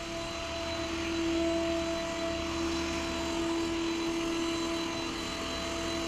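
Yeedi K760x robot vacuum running: a steady whir of its suction motor with a constant whine on top.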